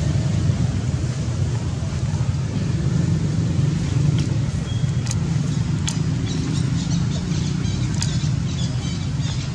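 A steady low rumble, with a few faint, brief high clicks over it.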